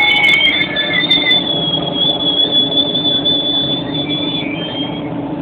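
GO Transit bilevel passenger coaches rolling slowly with a steady, high-pitched squeal of steel wheels over the low running noise of the cars. The squeal thins out over the first second or so and stops about four and a half seconds in.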